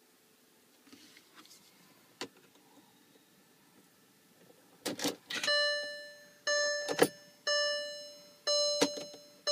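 A few sharp clicks, then a VW Touareg's dashboard warning chime starting about halfway through: a bell-like tone that sounds about once a second and fades each time. More clicks fall between the chimes.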